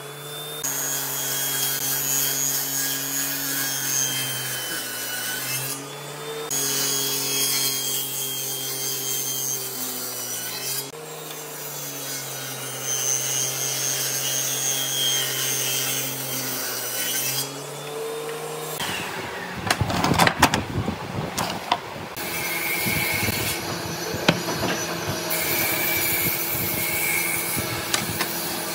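Table saw running and cutting slots across a bundle of thin wooden strips: a steady motor hum that shifts a little in level as the blade takes each cut. About two-thirds in, a short burst of wooden knocks and clatter.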